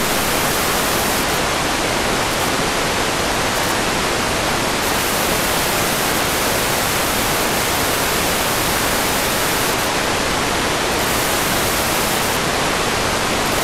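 Loud, steady static hiss from an analog FPV video receiver's audio channel with no signal from the plane's video transmitter.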